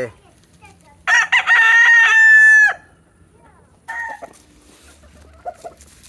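Rooster crowing once, about a second in: a loud crow of about a second and a half ending in a long held note. A short, fainter call follows near four seconds in.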